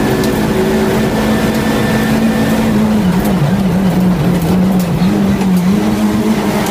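Renault Clio Cup race car's four-cylinder engine running hard under load. Its note holds steady, dips about three seconds in and wavers for a couple of seconds, then steadies again.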